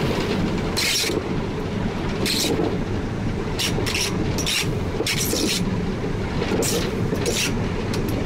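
1943 Davenport-built steam locomotive under way, heard from the cab: a steady rumble from the running gear and rails, with short hissing bursts of steam about every second.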